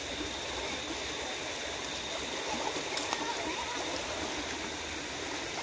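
Shallow river rushing steadily over rocks.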